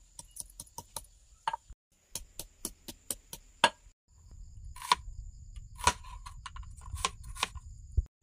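Kitchen knife slicing a red onion on a plastic cutting board: quick, even clicks about five a second, then a few slower, louder chops in the second half. A steady high insect trill runs behind.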